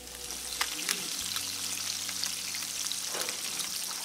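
Crappie fillets and small nugget pieces frying in hot oil in a pan: a steady sizzle with scattered sharp pops.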